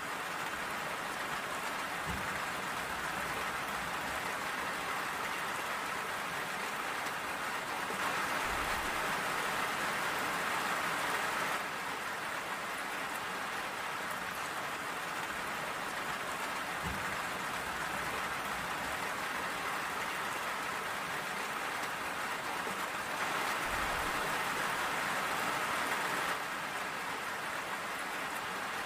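Steady rain falling, an even hiss of many drops, that swells louder for a few seconds twice, about eight seconds in and again near twenty-three seconds. A few soft low thuds sound under it.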